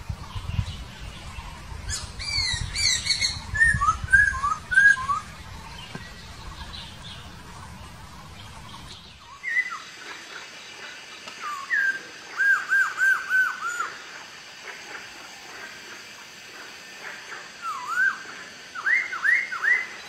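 Laughingthrush singing loud whistled phrases of slurred notes: a quick group of notes early on, a run of five repeated notes about twelve seconds in, and rising whistles near the end. A low rumble underlies the first half and stops abruptly about nine seconds in.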